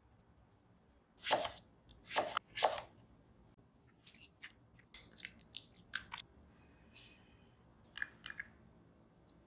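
A soft, fluffy bread loaf is torn apart by hand, giving three loud, short tearing rustles a few seconds in. Then soft cooked pumpkin is pressed with a metal potato masher in a ceramic bowl, in a quick run of squishes and clicks with a brief high squeak. Near the end a few light clinks come from stirring in a small glass beaker.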